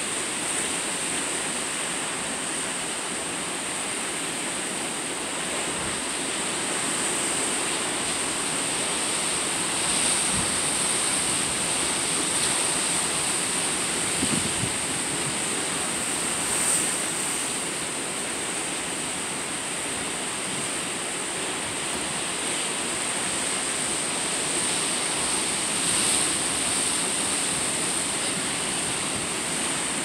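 Steady outdoor rushing noise that swells a little now and then, with a steady high hiss above it; the foraging sparrow makes no call that can be heard.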